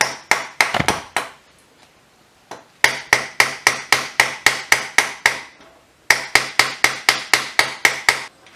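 Hammer blows on a motorcycle's front axle, driving it out through the wheel hub: a few knocks, then two long runs of quick, even strikes at about five a second.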